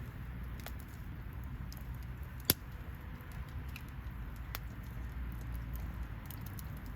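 Wood fire crackling: scattered small snaps over a low steady rumble, with one sharp, loud pop about two and a half seconds in.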